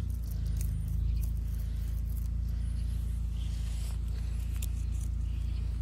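A vinyl decal being peeled from its backing paper, with short ripping and crackling sounds, over a steady low hum like a car engine idling.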